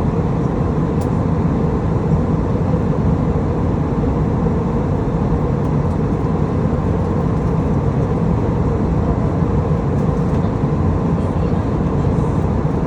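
Steady cabin noise of an airliner in flight: a constant low rumble of engines and airflow heard inside the passenger cabin.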